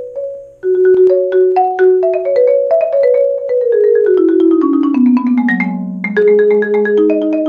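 Marimba played with four yarn mallets (Marimba One Wave Wrap #2, birch shafts): a patterned figure of struck notes breaks off briefly about half a second in, resumes, then runs quickly stepping downward in pitch before settling into a lower repeated figure about six seconds in.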